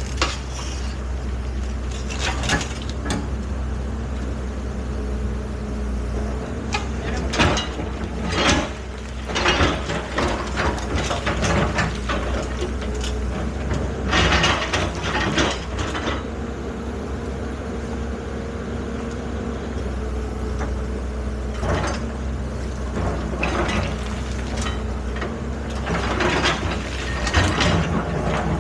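Excavator's diesel engine running steadily, with irregular clanks and scrapes of the machine at work, heaviest about halfway through.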